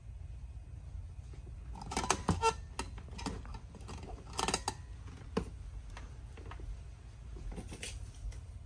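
Workbench handling noises: a few clusters of sharp clicks and rattles as battery wires are handled and a soldering iron is taken from its metal stand, over a steady low hum.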